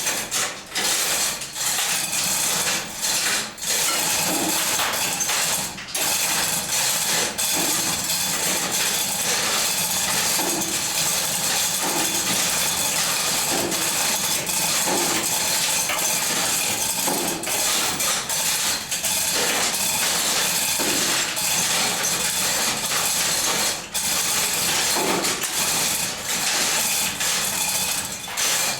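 Steady, loud mechanical rattling with a ratchet-like clatter, broken by a few brief pauses.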